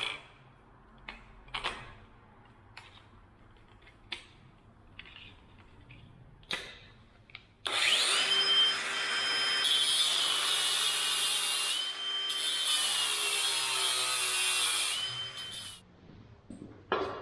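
Angle grinder with a cut-off disc starting about eight seconds in and cutting into the steel stick of a Kubota U10 mini excavator for about eight seconds. Its high whine dips in pitch whenever the disc bites, then it stops. A few light clicks come before it and a few knocks after.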